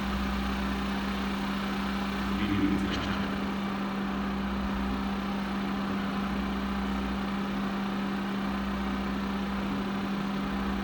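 A steady electronic drone: one constant low tone over a deeper hum and faint hiss, swelling briefly about two and a half seconds in.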